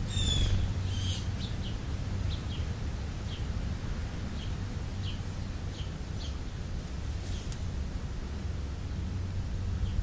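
House sparrows chirping: a quick cluster of short chirps near the start, then single short chirps every half-second to a second, over a steady low hum.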